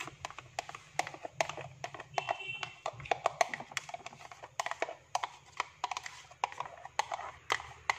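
Irregular light clicks and knocks, several a second, as a knife scrapes and taps against the rim of a steel saucepan while thick whipped ice-cream mix is poured out of it into a plastic container.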